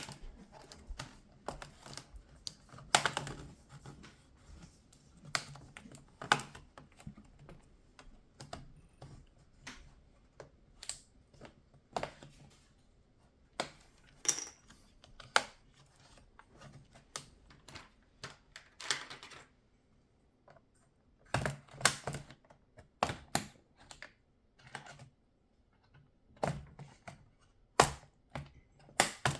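Irregular plastic clicks and taps of an HP ProBook 640 G4 laptop's bottom cover being worked loose and unclipped from the chassis.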